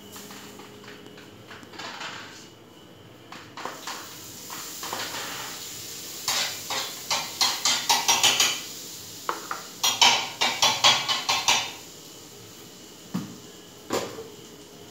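A spatula scraping and tapping on a stovetop griddle plate in two quick runs of strokes, then a couple of knocks near the end as a pot lid is handled.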